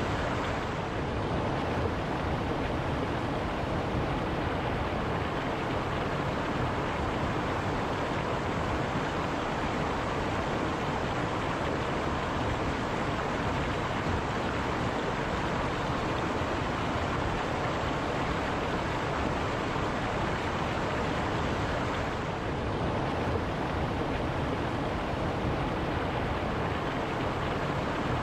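Fast mountain stream rushing over rocks in white water, a steady, unbroken wash of noise.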